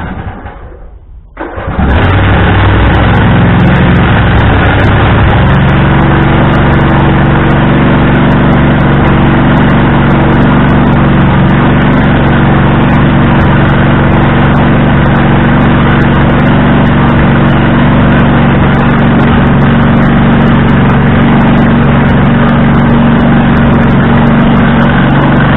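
Husqvarna riding tractor's engine starting about two seconds in, then running loud and steady through a broken exhaust.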